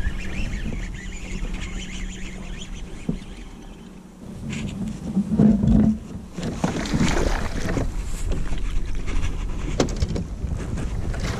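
Wind buffeting the microphone over water lapping against a plastic kayak, with a few short knocks from handling gear in the boat.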